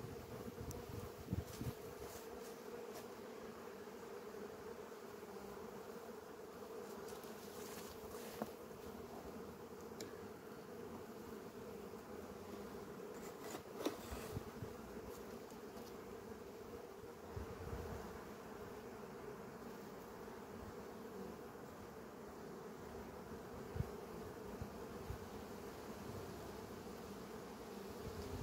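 Honeybee colony humming steadily from an open hive, with a few light clicks and knocks from wooden frames and a metal comb cage being handled.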